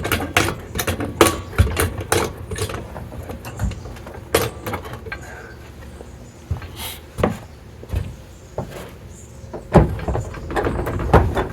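Hydraulic floor jack being pumped to lift a backhoe: repeated metallic clanks and clicks of the jack handle and lifting gear, about two or three a second at first, then more spaced out, over a low rumble.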